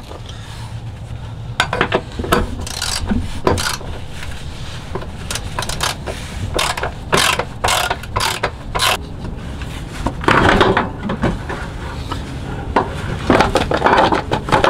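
Hand socket ratchet clicking in short irregular runs as bolts are driven back into the under-body mounting brackets, with louder runs near the end.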